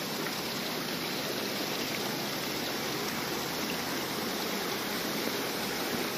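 A small stream flowing steadily, a constant even wash of running water.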